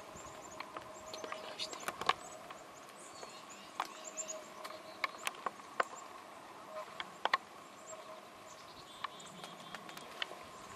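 Irregular sharp taps and ticks, a dozen or more spread unevenly, over a faint steady hum, with a few short high bird chirps.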